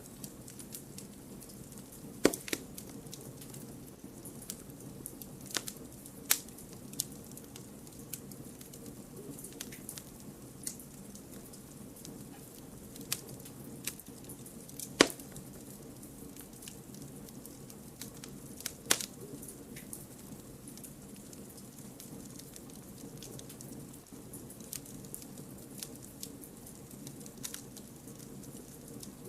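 Wood campfire burning: a steady low rush of flames with scattered sharp crackles and pops from the burning firewood, the loudest about halfway through.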